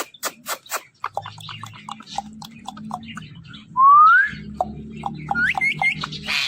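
A ringneck parrot gives a quick run of clicks, then short chirps, then a loud rising whistle about four seconds in. A few shorter rising whistles follow near the end, over a low steady hum.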